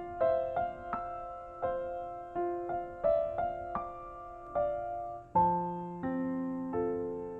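Background piano music: a gentle melody of single struck notes, each fading away, with a low bass note joining about five seconds in.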